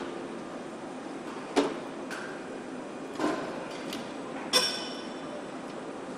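Car assembly-line noise: a steady machinery hum with sharp metallic clanks about one and a half seconds in and again around three seconds, and a louder clank with a short ringing about four and a half seconds in.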